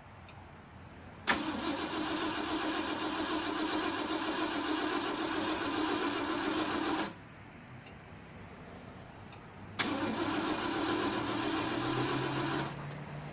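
A car starter motor cranks twice, each time beginning with a sharp click as it engages: a steady run of about six seconds, then a shorter one of about three seconds. The engine does not fire in this no-start, and the owner finds the starter sounds different than it used to.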